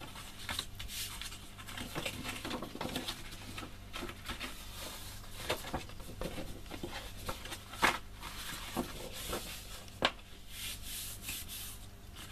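Kraft cardstock being handled and slid about on a tabletop: light paper rustling with scattered small taps and clicks.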